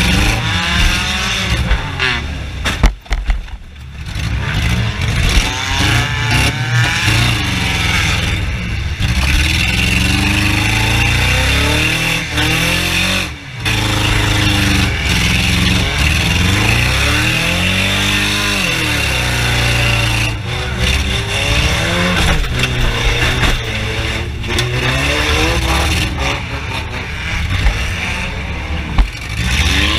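Several junk race cars' engines revving up and falling back again and again, their pitches overlapping, with two brief drops in level.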